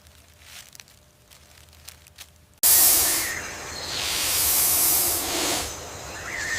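Faint rustling, then about two and a half seconds in a snake's hiss starts suddenly and loud, going on in long swelling hisses.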